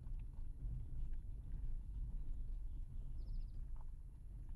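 Vehicle driving slowly on a dirt road, heard from inside the cab: a steady low rumble of engine and tyres with faint small rattles and clicks, and a short high chirp a little past three seconds in.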